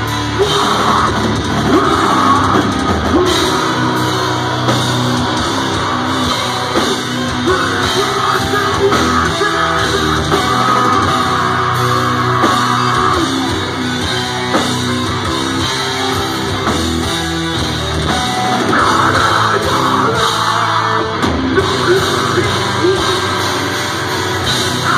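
Deathcore band playing live at full volume: heavily distorted electric guitars, bass and a pounding drum kit, with harsh vocals over it.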